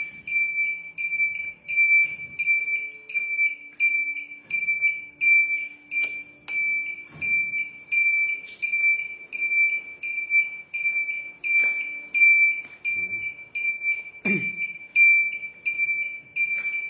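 Turn-signal beeper on a Suzuki Xipo 110 motorcycle beeping about twice a second in time with the flashing indicators, one high beep each time. A few soft knocks come in between.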